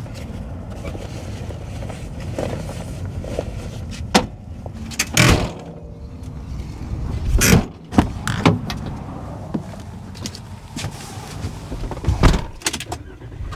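Several sharp clunks and knocks, typical of van doors and latches being shut, spaced irregularly over a steady low rumble of traffic.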